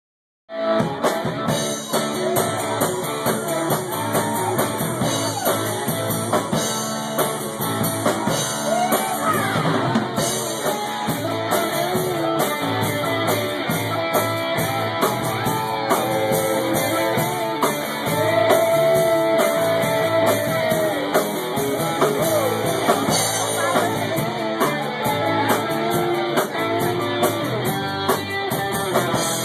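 Live rock band playing: electric guitar over a drum kit, loud and steady, starting abruptly about half a second in.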